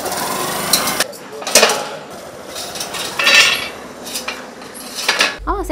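Steel crowd-control barricade rattling and scraping on the ground as it is dragged and swung into place, with several sharp metal clanks.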